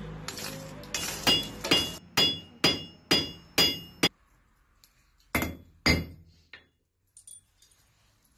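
Blacksmith's hand hammer striking hot iron on an anvil, each blow with a short metallic ring: about six fairly regular blows at roughly two a second, then after a short pause three lighter ones. A steady hum sits under the first blows and stops about two seconds in.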